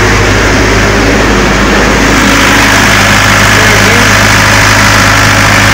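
22 kVA Able diesel generator running loud and steady at constant speed, heard close to its open engine bay, carrying the site's power during a simulated mains outage.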